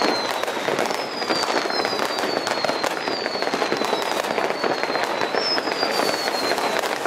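Many fireworks going off at once: a dense, continuous crackle of firecrackers and bursts. Over it run about six falling whistles one after another, each lasting about a second.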